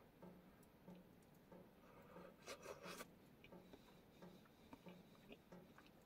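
Near silence: a person eating soup, with faint chewing at an even pace and a few small clicks about halfway through.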